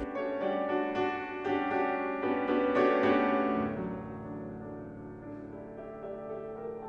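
Piano being played: a series of chords and notes is struck over the first three seconds or so, then a held chord fades away with softer notes played over it.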